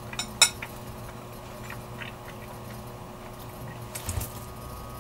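A person chewing a mouthful of soft chocolate-banana cake: faint smacking and small mouth clicks, with one sharper click about half a second in. A faint steady hum runs underneath.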